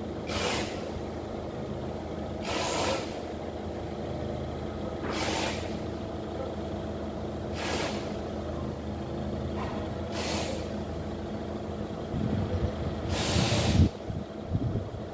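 Forklift engine running steadily, with a short hiss of released air about every two and a half seconds. The engine rumble swells louder for a couple of seconds near the end.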